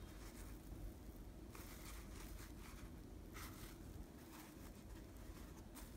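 Faint rustling of a cloth drawstring pouch and its rope cords being handled, in a few short soft brushes, the clearest about a second and a half in and near the end, over a low steady hum.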